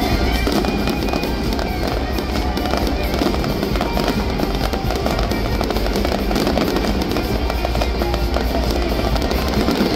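Fireworks bursting and crackling, many sharp cracks in quick succession, over loud music.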